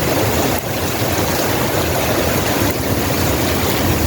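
Heavy rain and water making a steady rushing noise, with a low rumble on the microphone.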